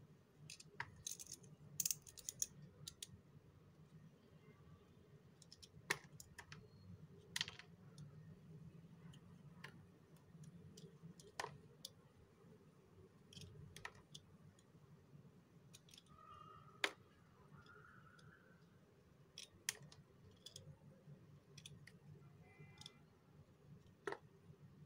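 A small blade cutting and shaving pieces off a bar of black soap: sharp, irregular clicks and crisp scrapes as the pieces snap off, over a faint low hum.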